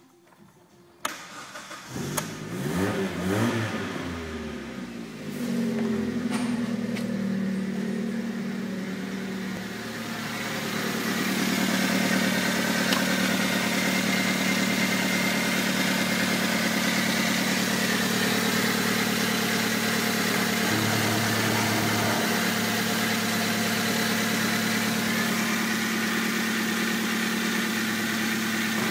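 Mazda 626 GF's 1.8-litre FP four-cylinder petrol engine being started: a click about a second in, then it cranks and catches, its revs rising and falling for a few seconds before it settles into a steady idle. The idle is heard louder later on, from the open engine bay.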